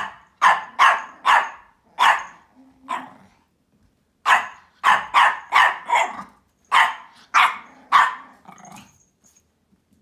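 A Pomeranian barking in short, sharp barks, about fourteen in all: a run of six, a pause of about a second, then a quicker run of eight.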